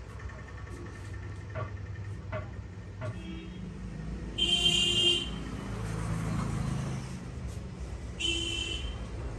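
Road traffic rumbling steadily, with two vehicle horn honks, the first about halfway through and a shorter one near the end.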